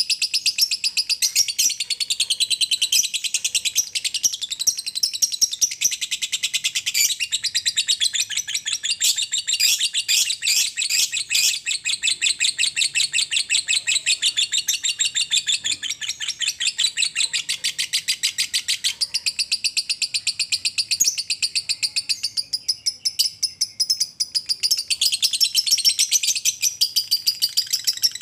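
Caged lovebird giving its long 'ngekek', the continuous chattering song prized in Indonesian lovebird contests: a rapid, unbroken stream of high chirping notes, many to the second.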